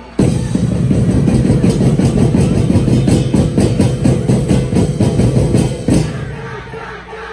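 Loud festival dance music with heavy drumming, starting suddenly and cutting off abruptly about six seconds in, leaving crowd noise.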